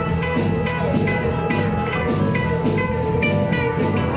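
Live blues-rock band playing an instrumental passage: drum kit keeping a steady beat with strokes about four a second, under electric guitar and bass.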